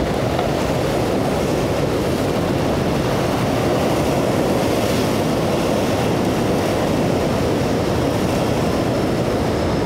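Steady rumbling drone of a center-console boat's outboard motor running through rough inlet water, mixed with wind and the wash of breaking waves.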